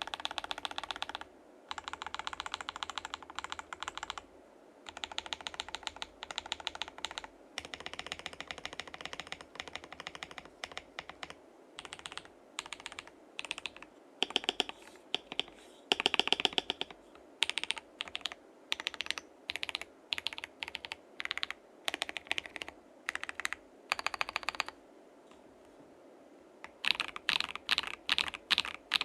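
Typing on a KBD67 Lite keyboard with lubed Akko CS Lavender Purple tactile switches, a polycarbonate plate, gasket mounting and sound-dampened case and plate. The keys clack in quick runs broken by short pauses.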